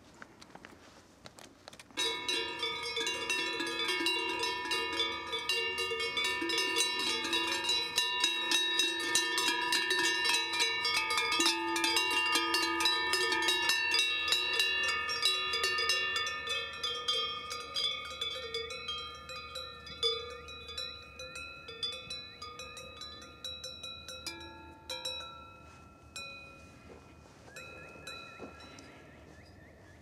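Several cowbells worn by cows ringing together at different pitches, starting suddenly about two seconds in; the ringing is dense at first, thins out after the middle, and only a few strikes are left near the end.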